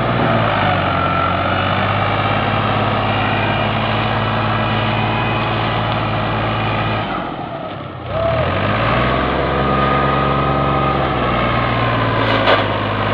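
Fiat 480 tractor's three-cylinder diesel engine running hard under a very heavy load, hauling a loaded sugarcane trolley through soft wet ground. About seven seconds in the engine note sags and falls away briefly, then climbs back and holds. A short sharp click comes near the end.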